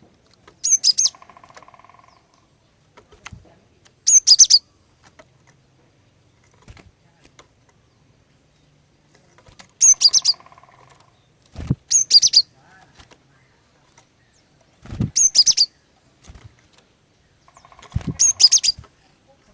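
Female cinereous tit (glatik batu) calling: about six short bursts of sharp, high chirps a few seconds apart, some trailing into a lower buzzy rattle. Dull low thumps come with three of the later bursts.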